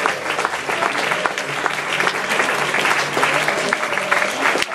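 Audience applauding a theatre curtain call: dense, steady clapping from many hands, with a few voices mixed in.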